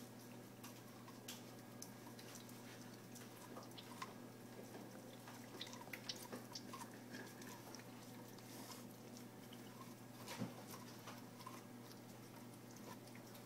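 Siberian husky gnawing kernels off a corn cob: faint, irregular wet crunching clicks, the sharpest a little after ten seconds in, over a steady low hum.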